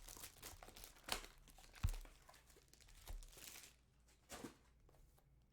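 Foil trading-card pack wrappers crinkling and tearing as packs are opened, with scattered clicks and a dull thump about two seconds in.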